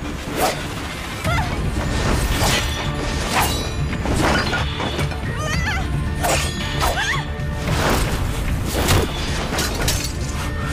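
Dramatic film score mixed with fight sound effects: sword swishes and sharp hits landing every second or so.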